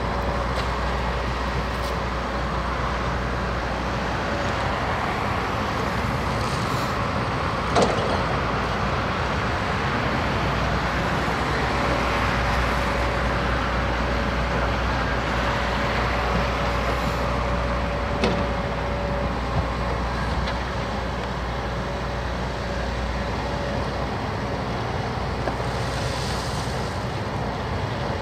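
Heavy construction machinery running steadily, with a low engine rumble and a faint steady whine, and a sharp knock twice, about 8 and 18 seconds in.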